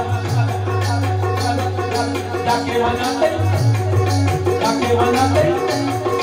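Music: a steady low drone under a wavering melodic line, with a quick, even shaker-like beat.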